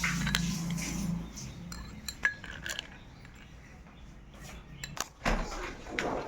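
Metal utensils and dishes clinking: a few separate clinks and knocks, one ringing briefly, with a low hum in the first second or so.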